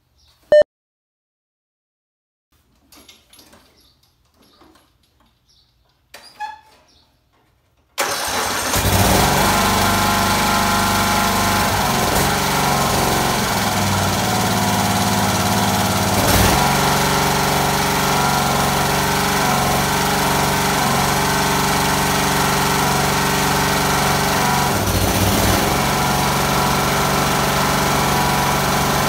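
A sharp click, then a few seconds of near quiet. About eight seconds in, a Briggs & Stratton mower engine, run without its camshaft compression-release flyweight, starts on the electric starter and then runs steadily.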